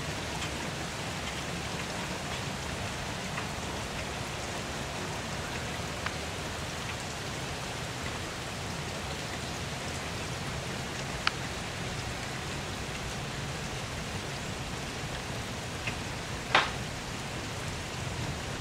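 Heavy rain falling in a steady, even hiss, with a few sharp ticks, the loudest about two seconds before the end.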